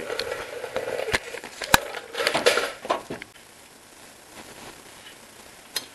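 Handling noise and clothing rustle while reaching into a car's engine bay to unplug a sensor connector, with two sharp clicks about a second and a second and a half in, then mostly quiet with one more click near the end.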